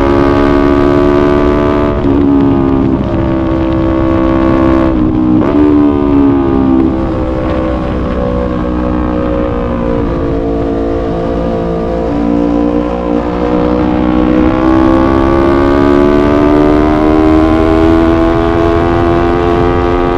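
Yamaha YZF-R3 parallel-twin motorcycle engine under way. It shifts gear about five seconds in, with a quick break in pitch and a climb back up, then pulls steadily in gear, its pitch slowly rising through the second half.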